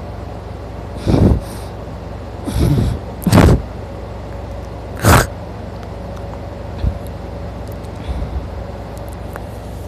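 A sleeping man snoring loudly: a string of heavy snores a second or two apart, four strong ones and a weaker one near the end, over a steady low background hum.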